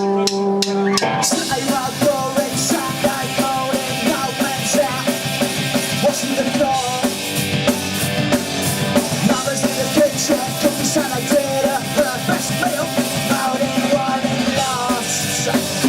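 Live punk rock band playing an instrumental intro: a held electric guitar chord rings, then drums, bass and guitars come in together about a second in and drive on at full volume.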